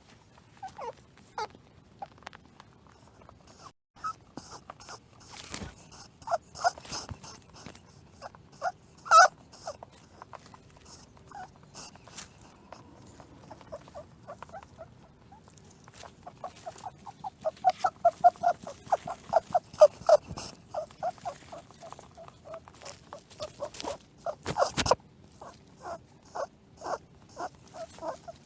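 Rabbit vocalizing: short pitched notes in irregular series, speeding into a quick run of about five a second past the middle. A few sharp knocks come in between.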